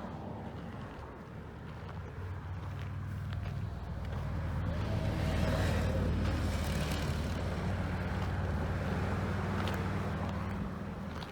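Motor vehicle engine and road noise, a low steady hum that grows louder a few seconds in, holds, then eases off near the end.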